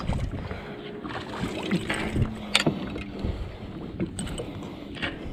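Scattered knocks and handling clatter aboard a fishing boat over a steady background of wind and water, with one sharper knock about two and a half seconds in.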